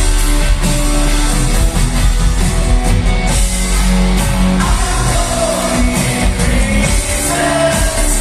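Rock band playing live in a passage between sung lines of a song, loud and steady, with drums and a deep bass under the instruments.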